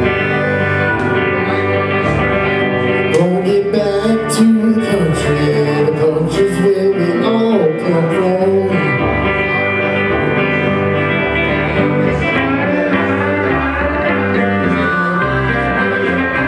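Live amplified band music: a man singing over two electric guitars. In the second half the singing stops and the guitars play on alone.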